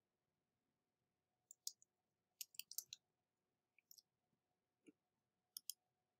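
Faint, scattered clicks of computer keyboard keys being typed, a few coming in a quick cluster about two and a half seconds in.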